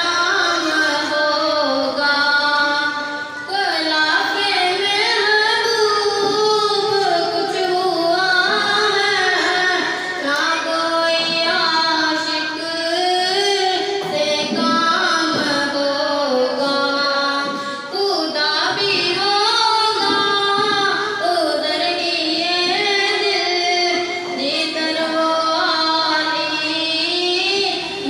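A boy's solo voice singing a naat into a handheld microphone, a melodic recitation with long held, wavering notes and only brief pauses for breath.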